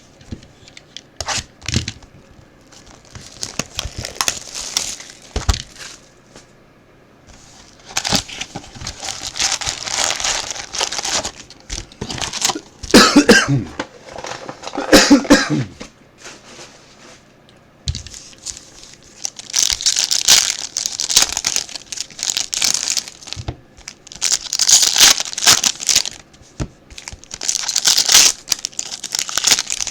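Plastic wrapping being torn and crinkled off a box of football trading cards as it is opened, in repeated spells of crackling with pauses between them, and two louder short bursts near the middle.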